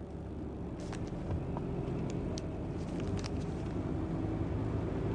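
Steady engine and road noise heard from inside a moving car, with a few faint ticks in the first half.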